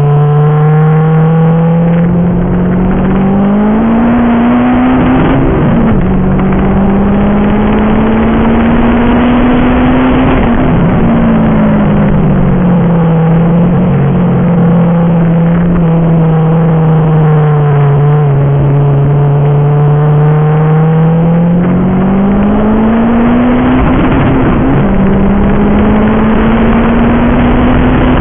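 Car engine heard from inside the cabin on a track lap, its pitch climbing under acceleration and sagging as the car slows for corners, with a few sharper changes about five, ten and twenty-four seconds in, over steady road noise.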